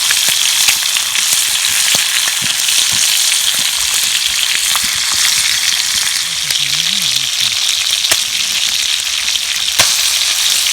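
Fresh pike frying in a pan: a steady loud sizzle with occasional sharp pops of spitting fat.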